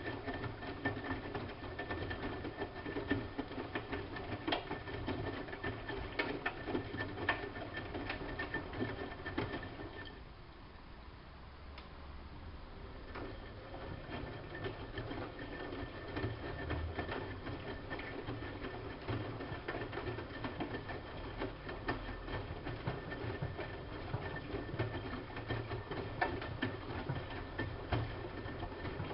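Siemens Siwamat IQ-series washing machine running a wash, its drum motor humming with steady rattling and clicking. About ten seconds in it goes quiet for a few seconds, then starts again with a deeper hum.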